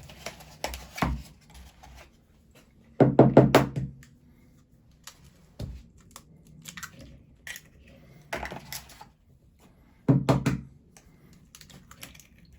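Knocks and taps of eggs being cracked against a bowl and emptied in, with two louder low thuds, about three seconds in and about ten seconds in, among scattered light clicks.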